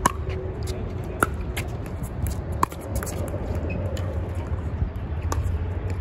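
Pickleball rally: sharp plastic pops of paddles striking the ball, three in the first three seconds and a fainter one near the end, over a steady low wind rumble on the microphone.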